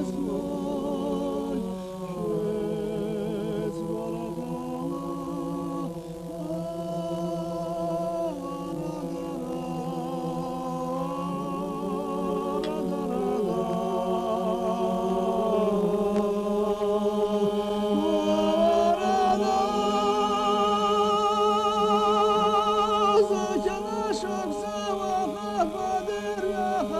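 Unaccompanied group singing: several wavering melody lines over a held low drone, growing louder in the second half.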